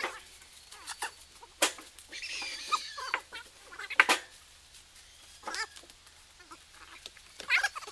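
Timber logs knocking against each other as they are handled and set down: several sharp wooden knocks at uneven intervals, the loudest about four seconds in.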